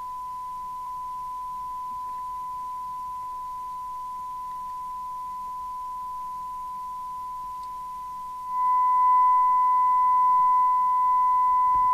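Steady test tone from a President Walker CB radio receiving an S9-strength test signal while its L11 detector coil is adjusted. About eight seconds in, the tone turns suddenly louder and a fainter, higher tone joins it.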